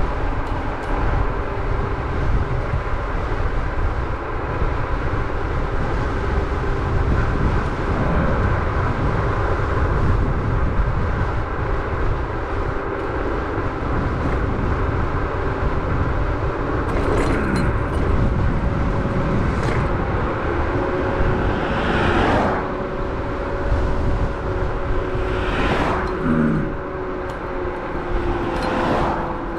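Riding an electric scooter: wind rushes over the microphone under a steady whine from the Varla Eagle One's hub motors, its pitch drifting slightly with speed. Four short swooshes pass in the second half.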